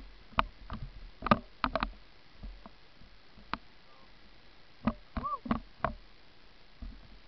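Irregular sharp clicks and knocks of ski gear, ski poles and skis clacking as a skier shuffles about, with one short arching tone about five seconds in.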